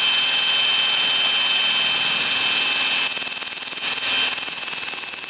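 Cordless drill running fast, spinning a pitch pine rod through a hole in a metal plate so the plate shaves it into a round dowel: a steady high whine with the hiss of the wood being scraped. About three seconds in it becomes quieter and uneven.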